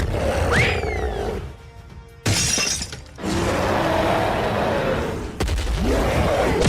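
Cartoon soundtrack music with sound effects: a whistle-like glide that rises and falls about half a second in, and a sudden shattering crash a little past two seconds in.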